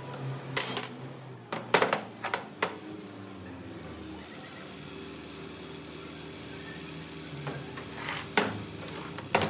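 Sharp metallic clinks and knocks, a handful in the first few seconds and a few more near the end, as tools and parts of a hydraulic drive pump are handled during dismantling. Steady background music plays underneath.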